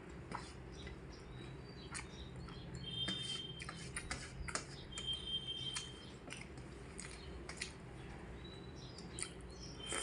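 Eating sounds from someone eating a rice meal: scattered soft clicks and chewing over a low steady hum, with three short high chirps.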